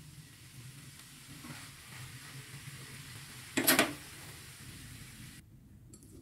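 Shredded cabbage and egg sizzling in a nonstick wok as they are stirred with a spatula, with one short, loud clatter about three and a half seconds in. The sizzle cuts off suddenly near the end.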